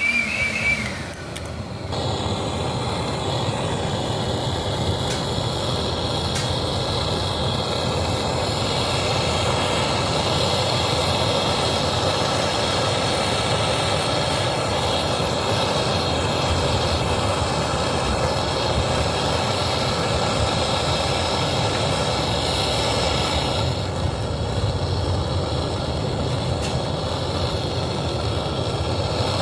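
A machine starts running about two seconds in and then runs steadily, with a faint high whine on top.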